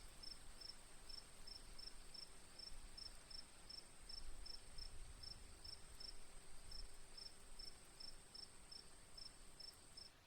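Faint insects calling, crickets or similar: one steady high-pitched trill and another repeating a short chirp about three times a second. Both cut off together near the end.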